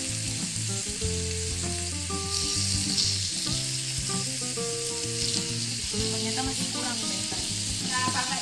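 Beef steak rolls sizzling steadily as they fry in a hot pan.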